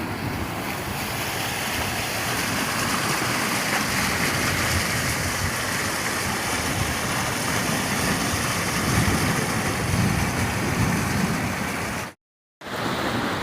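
Steady rushing of rainwater, with wind buffeting the microphone. The sound cuts out completely for about half a second near the end.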